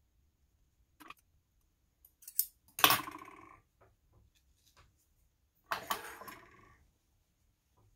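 Metal scissors clattering on a wooden sewing table: a few light clicks, then two sharp clatters about three seconds apart, each ringing briefly.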